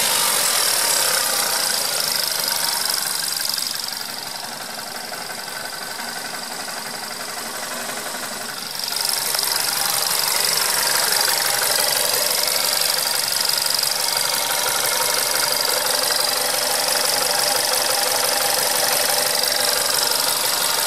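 Volkswagen Golf 6 1.4 TSI turbocharged four-cylinder petrol engine idling with a steady high whistle and a rattle, dropping quieter for a few seconds about four seconds in. The car whistles and rattles like this every time; the dealer calls it normal.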